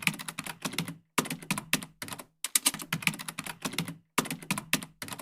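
Rapid keyboard-typing clicks in four or five bursts, each about a second long, with short gaps between them.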